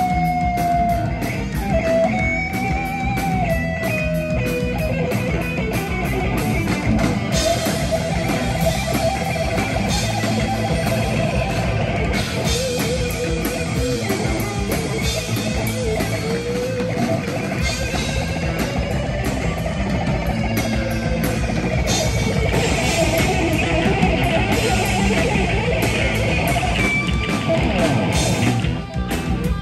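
Live thrash metal band playing an instrumental passage: distorted electric guitars, bass guitar and a drum kit, with a lead guitar line of bent, wavering notes over the riffing.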